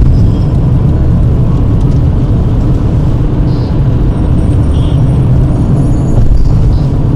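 Toyota RAV4 on the move, a heavy steady rumble of road and drivetrain noise, with a few faint, brief high-pitched squeaks in the middle and near the end.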